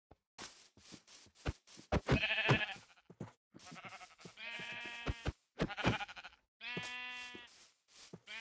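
A bleating animal calling repeatedly, about five calls each under a second long, the first with a wavering pitch. Scattered clicks and knocks fall between the calls.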